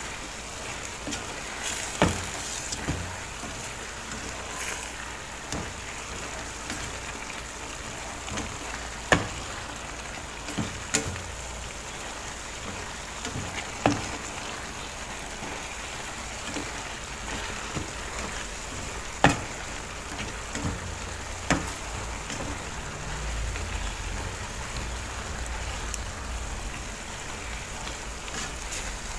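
Squash and greens sizzling in a stainless steel frying pan while being stirred with a slotted spatula, which knocks against the pan now and then with sharp clicks.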